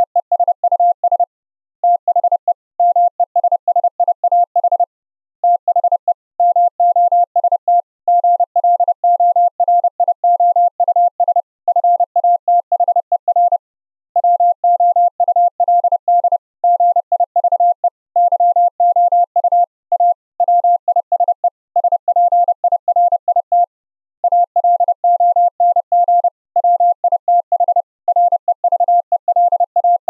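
Morse code (CW) sent by a computer keyer from a text file: a single steady mid-pitched tone keyed on and off in fast dots and dashes, with short pauses between words. The tone is being streamed over the internet through ffmpeg with the Opus codec.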